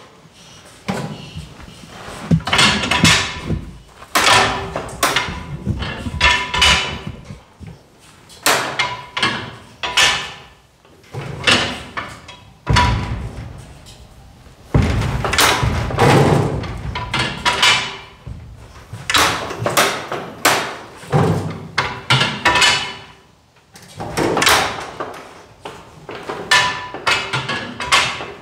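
Irregular metallic clanks and knocks, one or two a second with short pauses, from a man working the levers and controls of an antique tractor as he readies it for a cold start.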